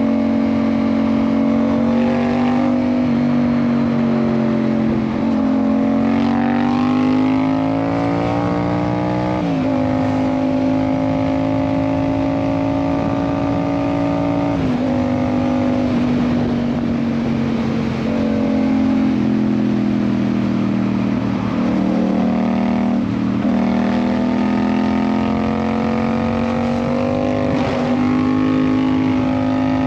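Yamaha MT-07's parallel-twin engine through an IXIL aftermarket exhaust while riding. The engine note holds steady for stretches, climbs as the bike accelerates, jumps abruptly in pitch twice, then eases off slowly and picks up again near the end.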